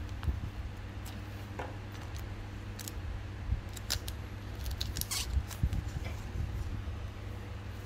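Scissors snipping through the foil wrapper of a Pokémon booster pack, then the crinkle of the opened foil pack as the cards are slid out, in short scattered clicks and crackles over a steady low hum.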